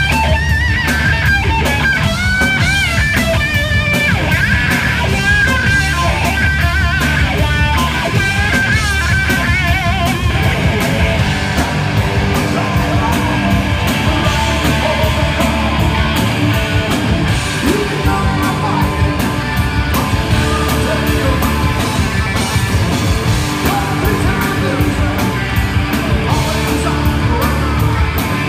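Hard rock band playing live and loud: a distorted electric guitar solo with bent, wavering notes over bass and drums, giving way about ten seconds in to the full band driving on together.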